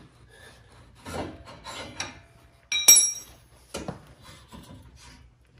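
Clicks, scrapes and rattles of metal as the brush guard's pins and clips are pulled and the guard is lifted off a John Deere X758 garden tractor, with one loud ringing metal clank about three seconds in.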